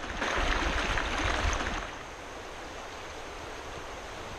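Small creek running over logs and stones, a steady wash of water. It is louder for about the first two seconds, then settles to a softer, even flow.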